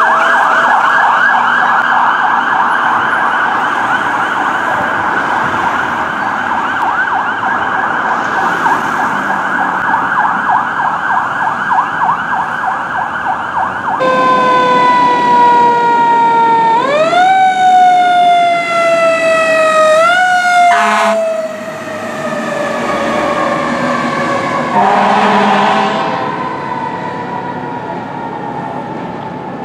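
Fire truck sirens. The first half is a fast-cycling yelp. After a sudden change about halfway through comes a wail that rises and falls slowly, with a brief horn blast near the end.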